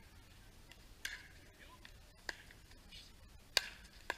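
Pickleball paddles striking the hollow plastic ball in a doubles rally: sharp pops, the first three about a second and a quarter apart, then a quick fourth half a second later. The third pop is the loudest.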